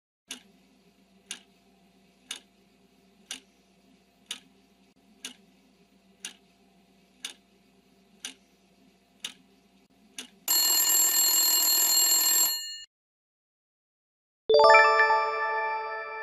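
Quiz countdown-timer sound effect: a clock ticks about once a second, around eleven ticks over a faint hum. Then a loud alarm-bell ring sounds for about two seconds as time runs out. After a short pause, a bright chime rings and fades as the answer is revealed.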